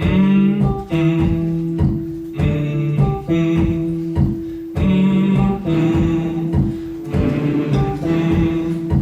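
Guitar strummed in a steady rhythmic chord pattern, with a sustained note held under the strokes.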